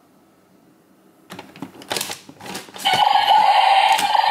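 Plastic clicks and rattles of the Bandai DX R/B Gyro toy being handled, then, about three seconds in, its electronic sound effect starts playing through the toy's small speaker: a loud, steady buzzing sound with sharp clicks about once a second.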